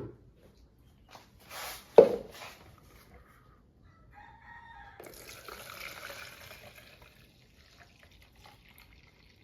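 Lye solution poured from a container into a measuring cup, a steady liquid pour lasting about three seconds. Before it, containers are handled, with a sharp knock about two seconds in.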